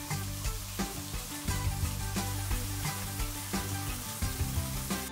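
Two ground-beef burger patties sizzling in hot oil in a frying pan, with background music and a steady beat underneath.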